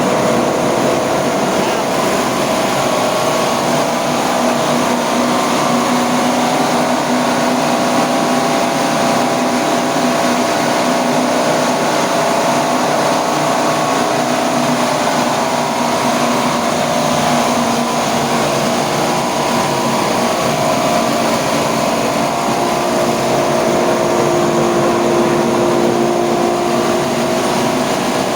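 Coconut-milk press machine with a coupled top grater, driven by a 2 hp 1800 W electric motor, running steadily with a loud, even hum and whine of several steady tones.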